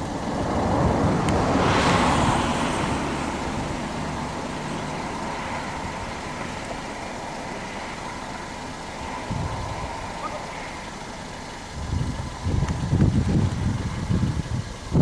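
A road vehicle passes, its noise swelling to a peak about two seconds in and fading slowly over steady traffic noise. Near the end, low gusts of wind buffet the microphone.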